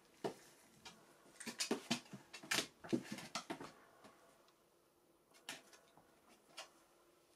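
A puppy's paws tapping and scraping on the floor of an empty plastic storage tub as it moves about in it: a run of short, irregular knocks, with a few scattered taps after.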